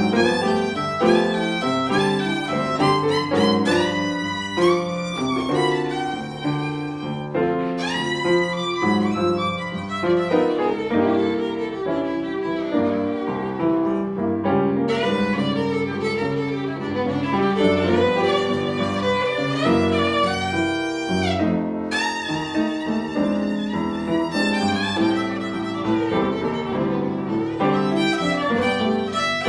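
Instrumental music led by a violin, a continuous run of notes with sliding pitches.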